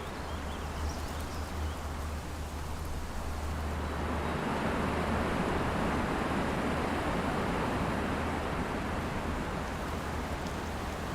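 Steady rushing of a waterfall, growing a little louder in the middle.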